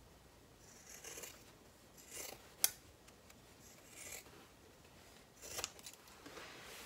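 Scissors trimming the seam allowance of a sewn fabric bag: several quiet, separate snips through the layered cloth, with one sharp click about two and a half seconds in.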